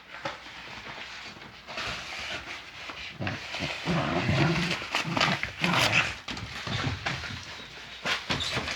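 An animal's sounds, loudest and deepest from about three to six seconds in.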